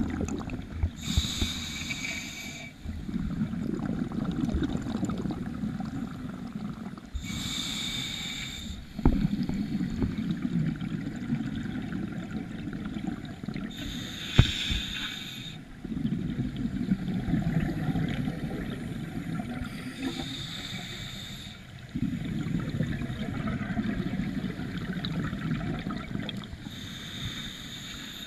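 Scuba diver breathing through a regulator, five breaths in a steady cycle: a short hiss of each inhalation through the demand valve, then several seconds of low bubbling as the exhaled air escapes.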